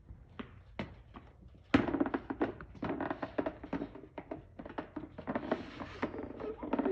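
A loud thunk about two seconds in as rubber boots land on a plastic exercise step platform, followed by a busy run of quick taps and knocks.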